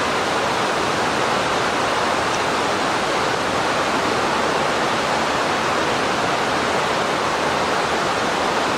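Loud, steady rush of flowing water, an even hiss that does not change.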